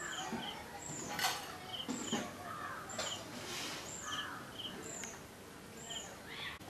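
A small bird calling over and over, about once a second: each call is a short high falling note with a quick lower double note. A few louder knocks and rustles come and go, the loudest about a second in.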